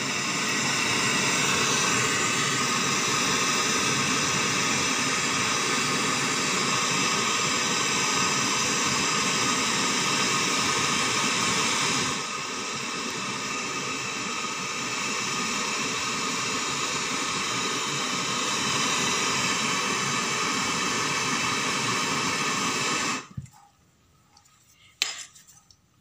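Hand-held gas brazing torch burning with a steady hiss while brazing a service nipple onto a refrigerator compressor's process tube. The flame is shut off about 23 seconds in and the hiss stops suddenly.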